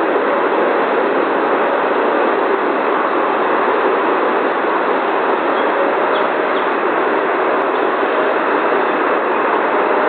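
Steady, loud rushing rumble with no let-up, the kind a passing train makes.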